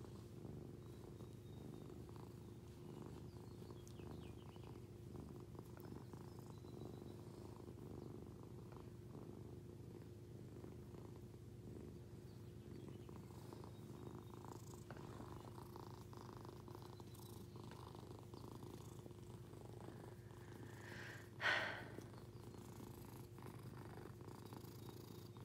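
Domestic cat purring steadily and faintly while its head and chin are scratched. One brief, louder sound cuts in near the end.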